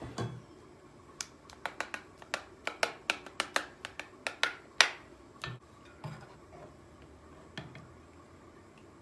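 A metal spoon clinking and scraping against a stainless steel pot and a ceramic plate as thick spinach purée is spooned out: a quick run of sharp clicks, the loudest about five seconds in, followed by a few softer knocks.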